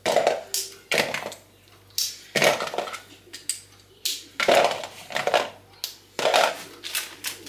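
Bars of chocolate being snapped into pieces by hand: a series of sharp cracks, roughly one a second.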